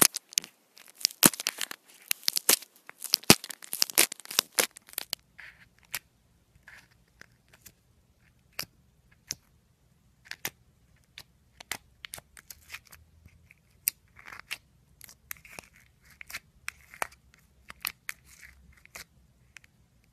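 Slime crackling and popping under fingers. For the first five seconds foam-bead slime gives a dense crunchy crackle as it is poked. Then glittery slime pressed in a plastic tub gives sparser clicks and pops.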